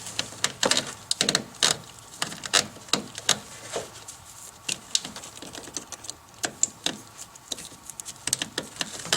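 Irregular small plastic clicks and knocks of an LED headlight bulb and its wiring plug being handled and fitted by hand, a few clicks a second.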